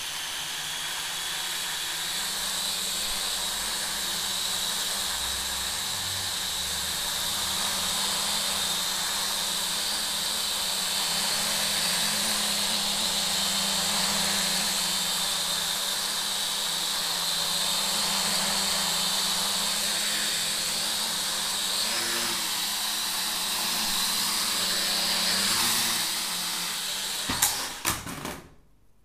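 SY X25 toy quadcopter's small electric motors and propellers whirring steadily in flight. Near the end there are a few sharp knocks as it comes down on the table, and the motors stop.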